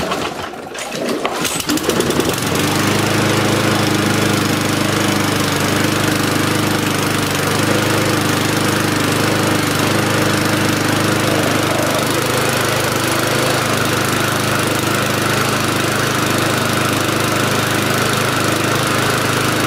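Briggs & Stratton 35 Classic lawnmower engine starting about two seconds in, then running steadily at one constant speed. It is running all right.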